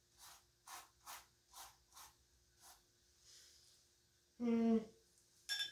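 Paintbrush dabbing short strokes of acrylic paint onto a stretched canvas: about six soft brushing swishes, roughly two a second, then a brief voiced sound from the painter near the end.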